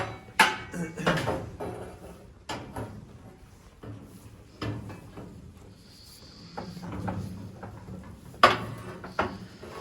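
Knocks and clatters of a lamb adopter crate being put together and handled, a string of separate sharp hits with quieter handling between them. A thin high tone is held for about a second around six seconds in.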